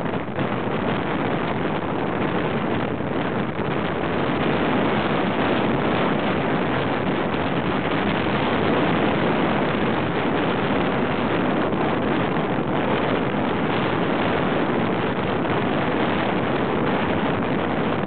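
Steady rushing of wind and surf on an open beach, with no bird calls heard.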